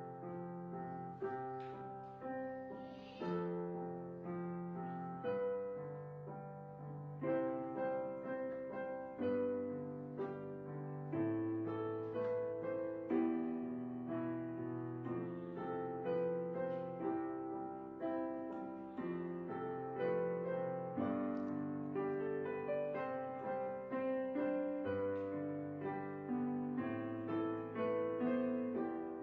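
Background piano music: a steady run of struck notes and chords, each ringing and fading before the next.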